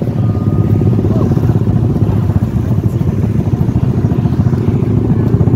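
A small engine running loudly and steadily, its rapid firing pulses continuing throughout.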